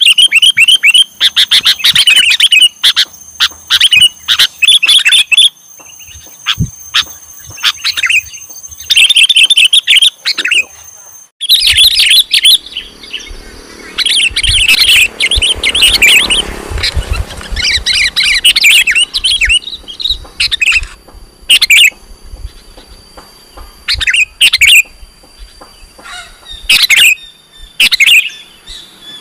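Sooty-headed bulbul (kutilang) singing: loud, repeated short phrases of bubbly, chirpy whistled notes, about one phrase a second, with a brief pause a little over ten seconds in.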